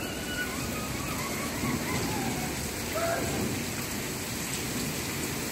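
Heavy rain pouring straight down onto wet paved ground, a steady hiss of rain on the surface.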